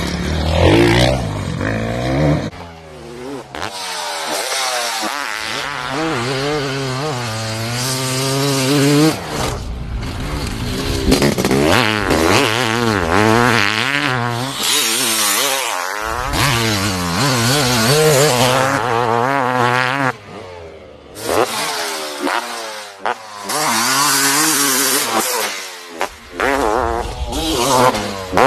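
Honda CR500 two-stroke single-cylinder dirt bike engines revving hard and accelerating, the pitch climbing and dropping with each gear change. The sound breaks off abruptly several times as one clip cuts to the next.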